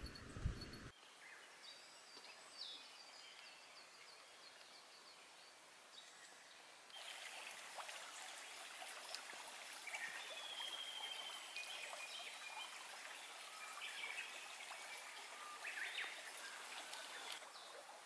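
Small, shallow forest stream babbling, with birds calling over it; the stream starts suddenly about seven seconds in. Before that there is quiet woodland air with a few faint bird chirps, after a few low thumps right at the start.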